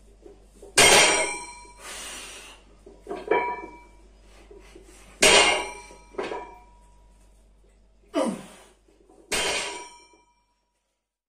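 Iron weight plates on a loaded trap bar clanging as the bar is lifted and set down: five metallic clangs, each with a short ringing tail.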